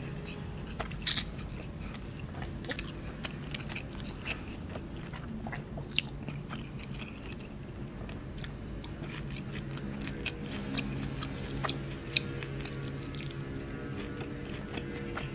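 Close-miked mouth sounds of someone eating noodles: chewing and biting, with many short, sharp clicks scattered throughout.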